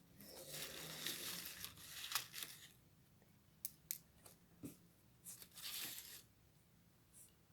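Small plastic bag of slime decorations rustling and crinkling as it is handled, with a few light clicks in between and a second rustle near the end.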